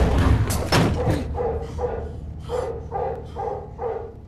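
Rottweiler barking fiercely and repeatedly, about three barks a second, after a couple of heavy thuds in the first second.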